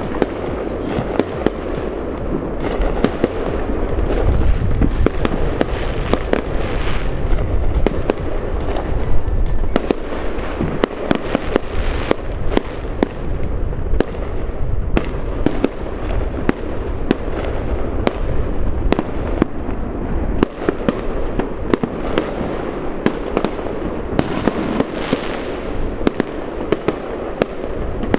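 Fireworks going off in a dense barrage: many sharp cracks and pops over a continuous crackle.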